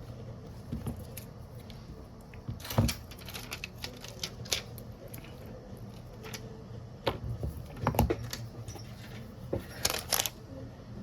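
Irregular clicks and knocks of small hard objects being handled, with a louder knock about three seconds in, another about eight seconds in and a quick cluster of clicks near the end, over a low steady hum.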